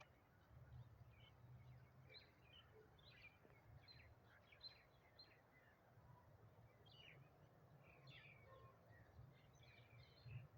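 Faint birds chirping: many short, quick chirps all through, over a low steady rumble.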